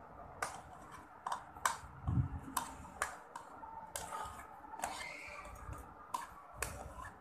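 Cubes of raw mango tipped from a ceramic plate into a stainless steel mixer-grinder jar, landing in an irregular run of clicks and taps against the steel and the plate, with one duller thud about two seconds in.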